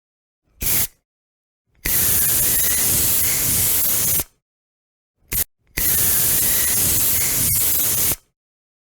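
Aerosol spray can hissing in four sprays: a short puff, a long spray of about two and a half seconds, a very brief puff, then another long spray, with silent gaps between.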